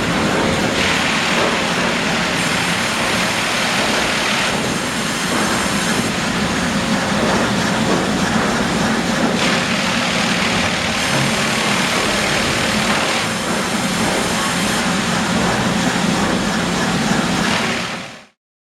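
USNR Sharp Chain twin-bandsaw log sawing line running, a steady machine drone under a loud sawing hiss that grows stronger for a few seconds twice as logs pass through the band saws. The sound cuts off suddenly near the end.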